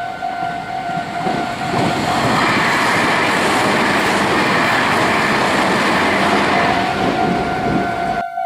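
A Meitetsu Nagoya Main Line train passes over a level crossing, its wheels clattering over the rails, while the crossing's electronic warning bell rings with a steady, pulsing tone. The train noise builds about a second in, stays loud for several seconds, and cuts off suddenly near the end.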